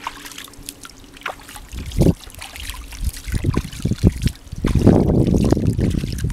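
Hands scooping and splashing in shallow lake water among rocks: a run of short splashes and drips, then a louder, denser stretch of splashing near the end.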